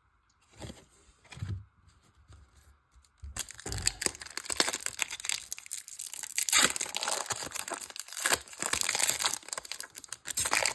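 Foil Pokémon booster pack wrapper being torn open and crinkled, a dense crackling that starts about three seconds in, after a few soft handling sounds.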